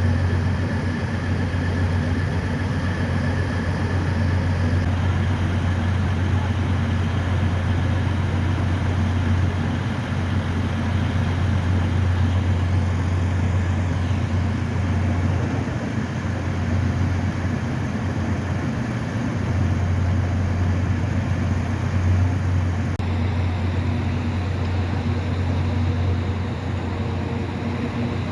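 Class 37 diesel locomotive's English Electric V12 engine idling, a steady low hum that holds even throughout.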